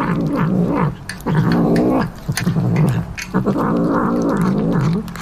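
Domestic cat growling while chewing meat off a skewer, in several low, drawn-out bouts with short breaks about a second in and again around three seconds, mixed with short chewing clicks.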